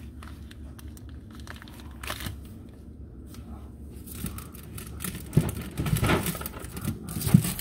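Rummaging through pantry packaging: packets crinkling and rustling, with scattered knocks. It gets busier in the second half and ends with one sharp knock.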